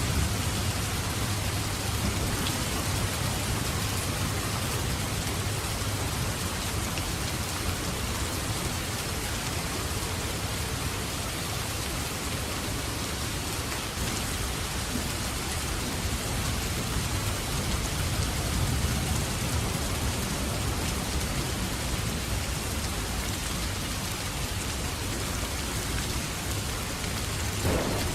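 Steady heavy rain falling, with low thunder rumbling underneath that swells at times, and the odd faint crackle of a wood fire in a fireplace.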